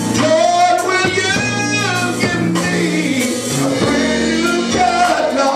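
A man singing a gospel worship melody, with instruments holding steady low notes underneath.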